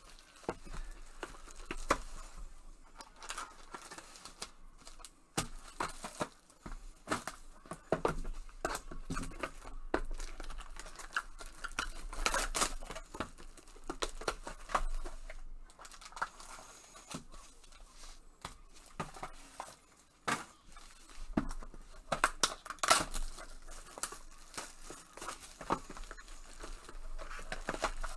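Foil wrappers of Panini Obsidian football card packs being torn open and crinkled by hand, with irregular rustles and clicks as packs and boxes are handled.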